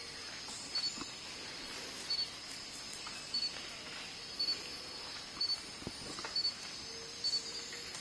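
Tropical forest ambience: a steady high insect hiss, with a short, high double chirp repeating about once a second. There are a few faint snaps.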